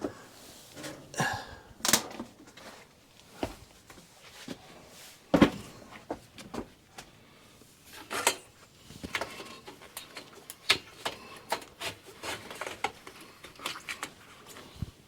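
Sheet-metal stovepipe being worked by hand: scattered clanks, taps and scraping, with one louder knock about five seconds in.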